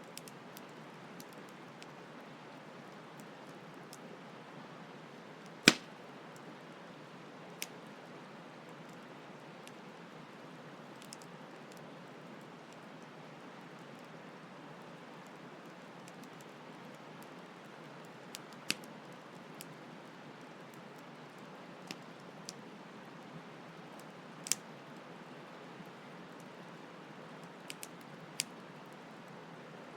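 Campfire crackling, with sharp wood pops scattered irregularly and the loudest pop about six seconds in, over a steady hiss of flowing stream water.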